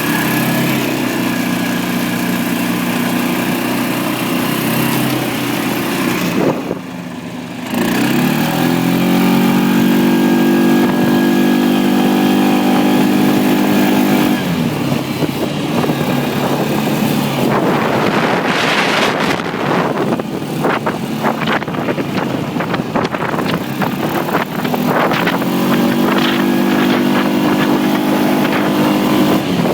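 1997 Kawasaki Prairie 400 4x4 ATV's single-cylinder four-stroke engine running under way. It drops off briefly about six seconds in, then picks up again with a slightly rising pitch. Midway the engine note is largely covered for several seconds by a rushing noise and many sharp knocks, and it comes through clearly again near the end.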